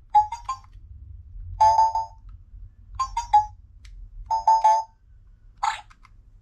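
Electronic toy remote control playing beeping tone sequences from its small speaker: three quick beeps, then a longer warbling tone, repeated twice, and a short buzzy sound near the end.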